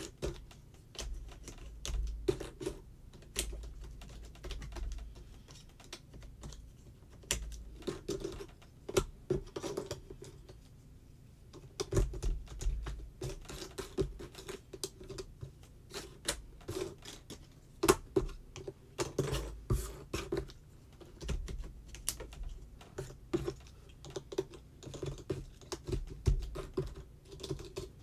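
Jigsaw puzzle pieces clicking and tapping irregularly as they are picked up, shuffled and pressed into place on the board, with now and then a dull knock on the table.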